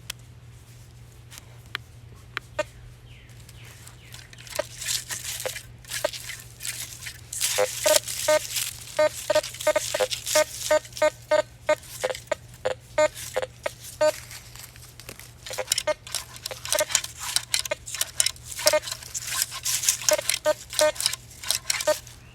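Teknetics Patriot metal detector sounding repeated short, same-pitched beeps as the search coil is swept back and forth over a buried target, with rustling and scraping between them. The beeps come in two long runs, several a second, over a steady low hum.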